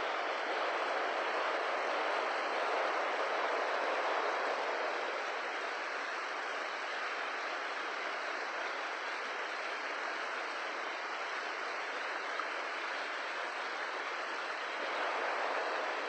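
Mountain creek water rushing over rocks: a steady, even rush of flowing water.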